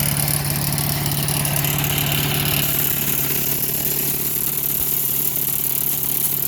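Craftsman 4 HP wood chipper/shredder's small four-stroke engine running steadily at a low, even speed as it warms up on a freshly fitted replacement carburetor.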